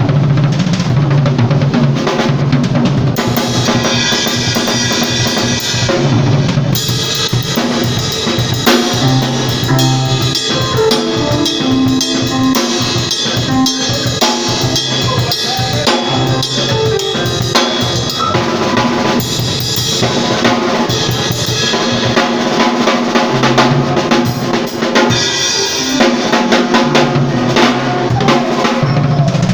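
A band playing, led by a drum kit with kick and snare beating steadily under bass and held chords.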